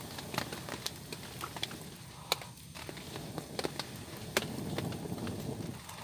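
Small wood campfire crackling: sharp pops and snaps at irregular intervals.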